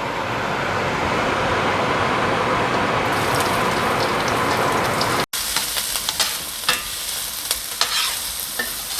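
Diced onions sizzling in hot oil in a pan, a dense, steady hiss. About five seconds in it breaks off abruptly and comes back as a quieter sizzle with scattered pops and clicks.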